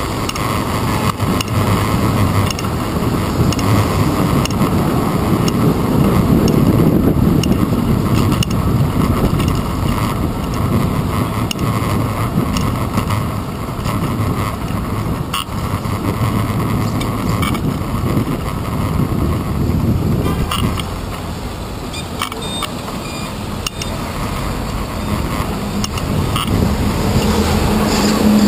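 Riding a bicycle through heavy city traffic: a steady rush of road rumble and wind on a handlebar-mounted camera in its case, with buses, cars and trucks running close alongside. Near the end a low steady hum comes in as a large truck is alongside.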